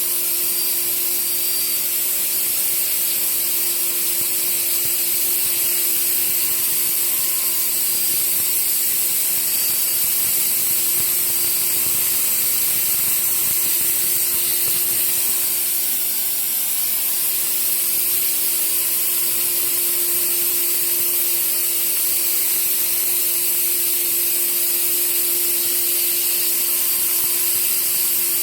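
ATC CNC woodworking machine running steadily: an even high hiss with a steady hum underneath, no pauses or knocks.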